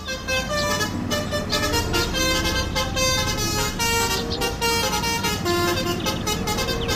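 Indonesian "telolet" multi-tone bus horn playing a rapid tune, its held notes stepping up and down in pitch, over the steady low rumble of a moving coach bus.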